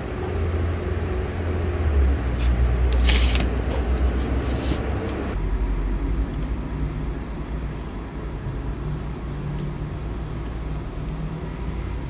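Steady low rumble of a road vehicle, with two brief hissing swells about three and four and a half seconds in; the sound changes abruptly a little after five seconds in.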